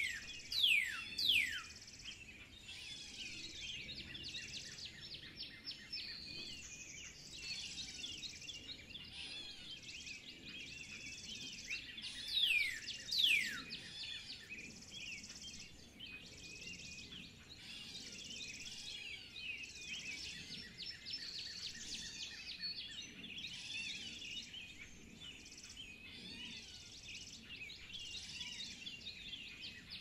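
Many birds chirping and twittering at once, with loud descending calls twice near the start and twice again about halfway through.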